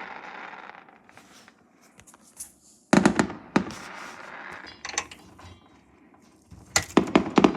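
Fireworks going off: a sharp bang about three seconds in, more around three and a half and five seconds, and a quick cluster of bangs near the end, with crackling between them.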